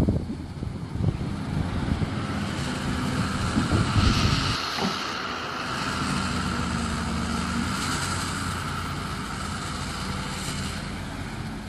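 Sumitomo hydraulic excavator working: the diesel engine runs steadily with a higher whine over it, and there are heavy clunks right at the start and again about four seconds in.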